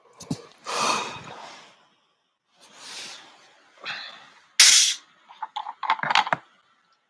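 A man breathing out heavily twice while stretching, then a sharp noisy burst a little past halfway. Near the end come quick clicks and rattles as the metal screw cap of a glass water bottle is turned.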